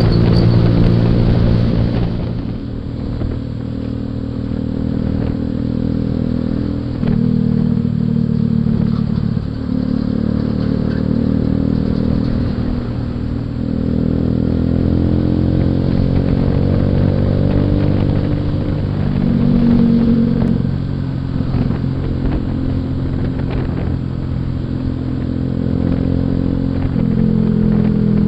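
Suzuki Shogun 125's single-cylinder four-stroke engine running while riding, its pitch rising and dropping in steps several times as the revs change.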